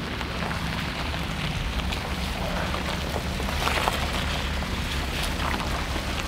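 A BMW X3 on the move: a steady low engine hum under an even rushing noise of wind and tyres.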